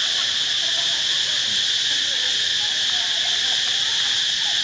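Steady chorus of insects, a continuous high-pitched buzz that holds the same level throughout.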